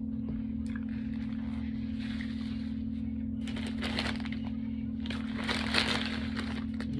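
Eating and food-handling noises close to the microphone: two spells of crinkling, crunching noise, about three and a half and five and a half seconds in.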